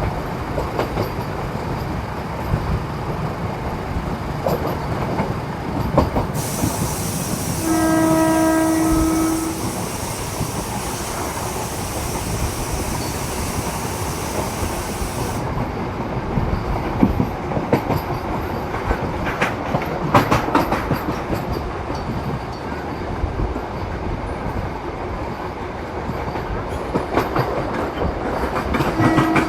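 MEMU electric multiple unit train running, with steady wheel-on-rail noise. Its horn sounds once for about two seconds some eight seconds in, with a higher hiss for several seconds around it. Later come clusters of rail-joint clicks, and the horn begins again at the very end.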